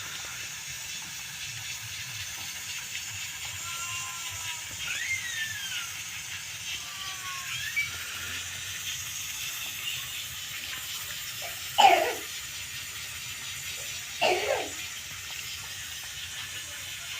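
A baby monkey gives two short, high squeals about two and a half seconds apart, each falling in pitch, over a steady hiss with faint thin chirps.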